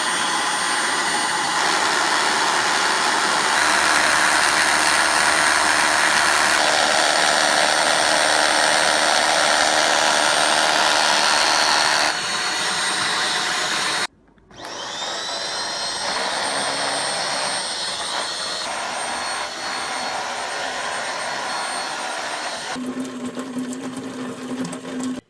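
Handheld bedding vacuum cleaner running with a steady motor whine and suction noise. After a brief cut about 14 seconds in, the motor starts again with a rising whine as it spins up, then runs steadily.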